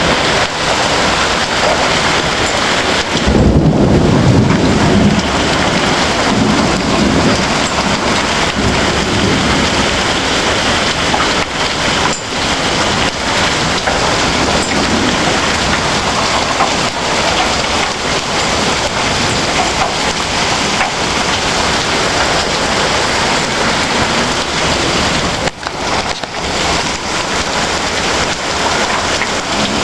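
Heavy thunderstorm downpour pelting down steadily, with a low roll of thunder about three seconds in that lasts a couple of seconds.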